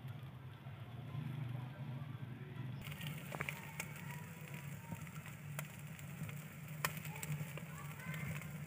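Fire in a clay tandoor crackling, with scattered sharp pops from about three seconds in, over a steady low hum.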